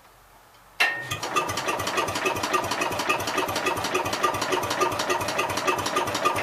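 Gravely C10 tractor's single-cylinder engine being cranked by its starter-generator, a steady rapid chugging that starts suddenly about a second in and keeps going without the engine firing. It cannot catch because the ignition is giving no spark.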